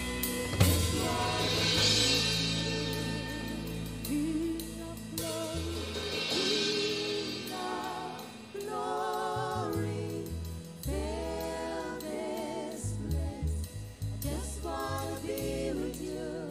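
Live gospel worship music: a woman singing long, held notes with vibrato over a band with keyboards, electric guitar, bass and drums.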